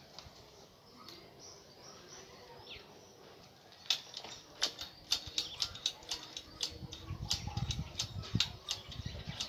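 Bicycle being handled and its newly fitted brakes worked: a run of sharp, irregular clicks and rattles starting about four seconds in, with a low rumble toward the end.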